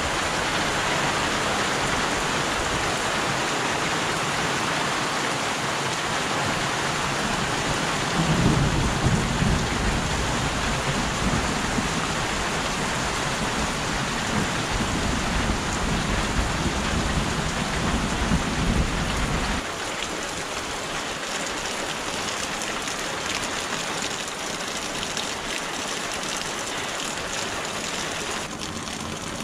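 Steady rain falling. About eight seconds in a deep low rumble joins it, lasts about eleven seconds, and stops abruptly.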